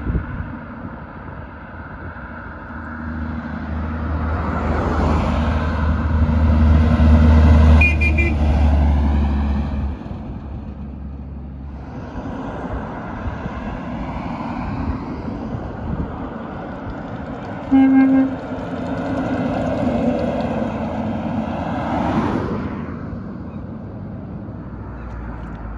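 Heavy trucks passing. A deep engine drone swells to its loudest about eight seconds in and cuts off sharply near ten seconds. About eighteen seconds in comes a short horn toot, followed by another truck going by.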